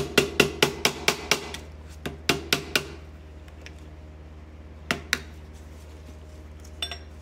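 Sharp taps with a plastic punch on the stuck needle bar of a 1920 Singer 127 sewing machine, driving it out of the cast-iron head. A quick run of taps comes first, then a few more in small groups that thin out.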